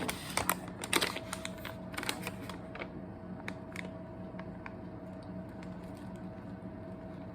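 Plastic MRE packaging being handled: scattered sharp clicks and crackles, busy for the first couple of seconds and then sparse, over a low steady hum with a faint steady tone that comes in about a second in.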